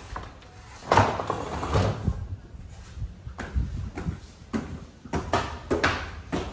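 A series of irregular knocks and thumps, about six, over a low rumble of wind on the microphone.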